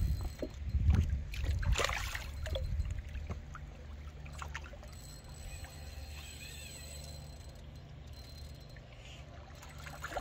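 Water sloshing and splashing against shoreline rocks, with a few sharp splashes in the first few seconds. A low rumble comes in bursts over the first second or two.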